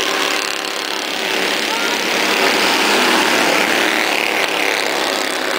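Bandolero race cars' small V-twin engines running together as the pack comes by on the track, pitch rising and falling a little as drivers work the throttle.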